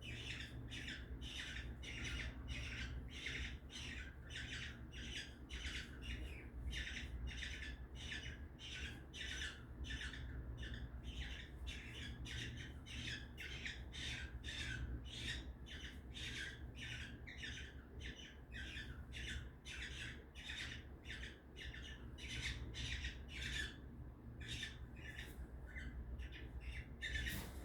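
Parrot squawking in short, harsh calls repeated about twice a second without letting up, over a steady low hum.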